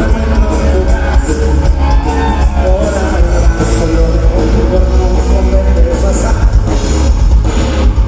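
Loud live rock music from a band: heavy bass and drums with a singing voice over it.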